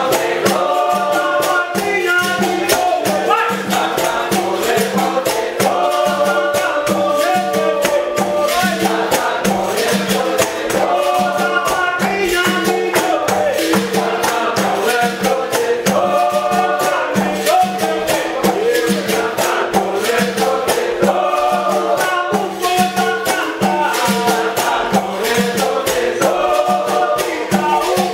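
Live capoeira roda music: berimbaus with the shaken rattle of caxixis and the jingles of a pandeiro keeping a steady, fast rhythm under a group singing together.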